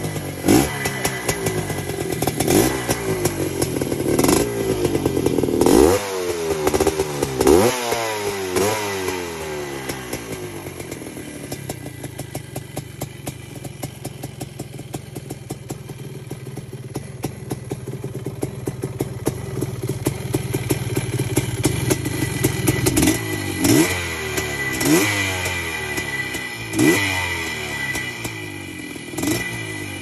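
Bultaco Frontera Gold Medal 370's single-cylinder two-stroke engine running, its throttle blipped sharply about five times in quick succession. It then settles to a steady idle, and is blipped four more times in the last seven seconds.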